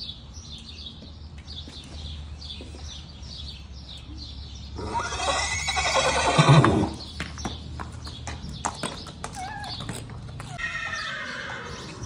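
A horse whinnies loudly for about two seconds, starting about five seconds in and dropping in pitch at the end. Scattered light clicks and knocks follow.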